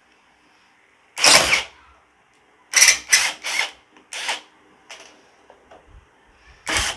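Mensela ID-L2 brushless cordless impact driver run in reverse on a screw in wood, in short trigger bursts. The first burst is the longest; a quick run of shorter ones follows about three to four seconds in, and a last one comes near the end.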